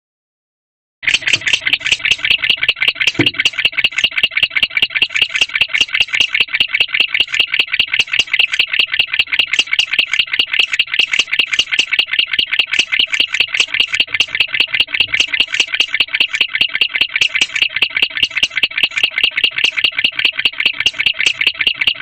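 Young male barn owl chirping: a fast, even train of short, high chirps that starts about a second in and keeps going without a break. There is one low thump about three seconds in.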